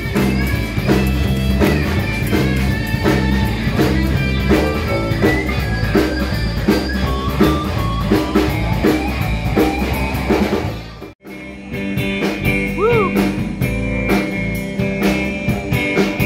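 Band music with guitar and a drum kit keeping a steady beat; it cuts out suddenly about eleven seconds in and starts again a moment later.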